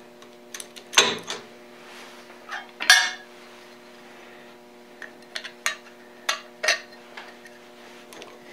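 Small metal parts clinking and knocking as a fitting and nut are handled and set into a machine: two louder knocks about one and three seconds in, then a run of lighter clicks. A faint steady hum runs underneath.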